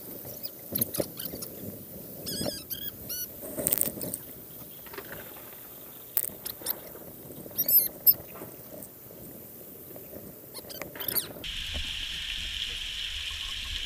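Rainwater splashing and sloshing into plastic buckets and metal pots as they are filled and moved, with scattered knocks and clanks of the containers. About three-quarters of the way through, the sound changes abruptly to a steadier hiss of rain.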